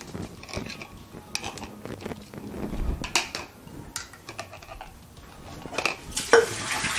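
Light clicks and knocks of a plastic ladle and canning funnel against a glass quart canning jar as it is filled with turkey soup, with a short rushing noise about six seconds in.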